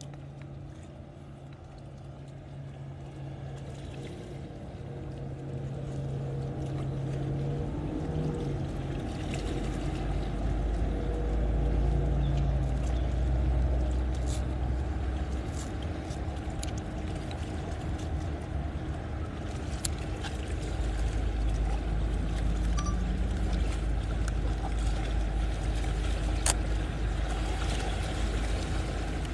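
Motorboat engine running as the boat heads away, its steady hum fading over the first dozen seconds. A low rumbling noise builds from about six seconds in and becomes the loudest sound.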